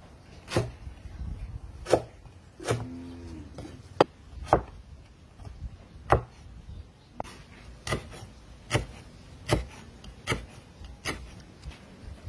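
Heavy cleaver chopping lemongrass and ginger on a wooden chopping board: a run of sharp single knocks as the blade cuts through and strikes the wood, unevenly spaced about one every half second to second.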